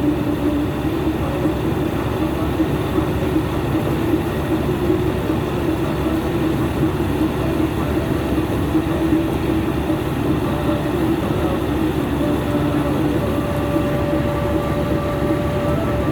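Engine of a harvesting machine running steadily at constant speed, a continuous low drone with a steady hum.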